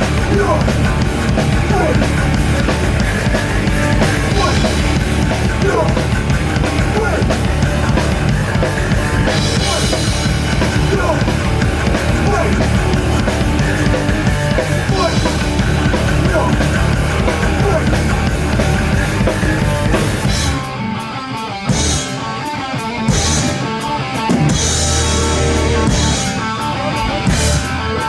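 Live punk rock band playing loudly with drum kit and distorted guitars. About twenty seconds in, the full band thins out into a sparser passage of separate drum hits and breaks.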